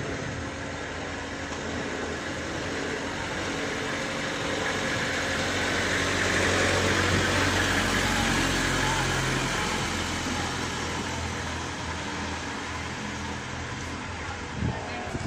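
A motor vehicle's engine running close by, over the general noise of a street; it grows louder around the middle and then fades.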